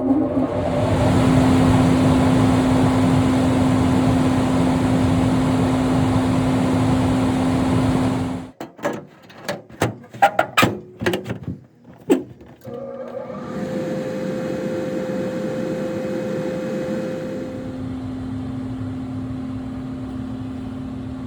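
Furnace blower motor running with a steady hum and rush of air. It stops about eight seconds in, a few clicks and knocks follow, and it starts running again a few seconds later.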